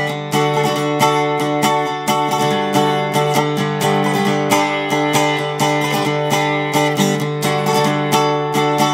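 Solo steel-bodied resonator guitar in Nashville G tuning, picked in a steady run of ringing notes over a held low note.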